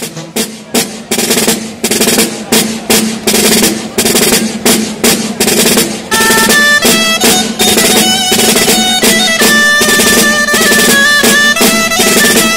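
Tabal drum beating a steady dance rhythm on its own, then about six seconds in the dolçaina comes in with a high melody over the drum.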